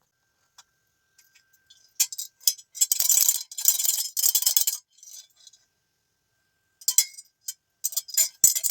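Handmade damru being shaken, its knotted cords striking fast and rattling in two spells, the second starting about seven seconds in.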